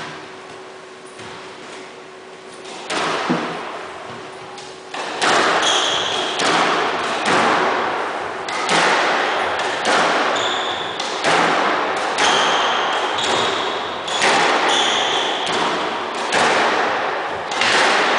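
Squash rally: the ball cracks off racquets and the court walls, a few isolated hits at first, then from about five seconds in a fast exchange with a hit roughly every second. Sneakers squeak briefly on the hardwood floor between hits.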